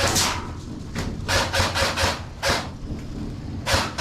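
Close, irregular rustling and scraping noises, about six short scrapes in four seconds.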